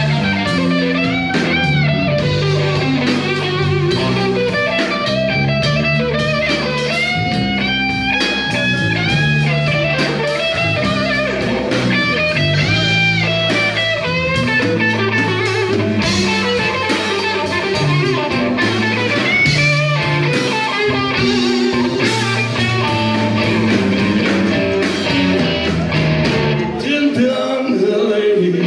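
Live blues-rock band playing: an electric guitar lead with bent notes over bass guitar and drum kit.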